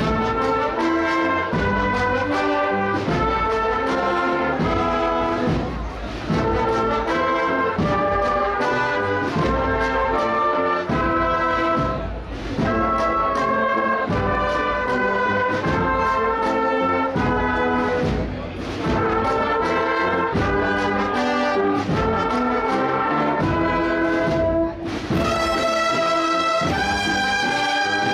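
Brass band with drums playing a lively Holy Week processional march: brass melody over a steady drum beat, with brief breaks between phrases about every six seconds.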